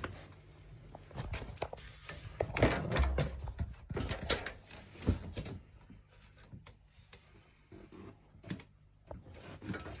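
Handling noise: irregular knocks, taps and rustles as a hand touches and moves along a plastic-cased electric convector heater, busiest from about two to five seconds in, then quieter.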